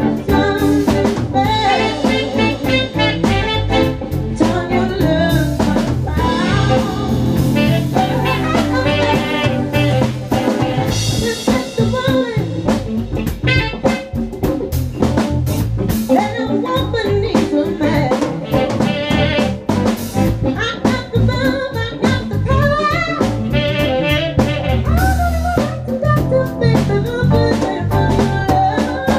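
Live band playing a groove: drum kit and percussion, keyboard, and electric bass through an Acoustic 360 folded-horn bass amp giving a full, warm low end, with a melody line on top.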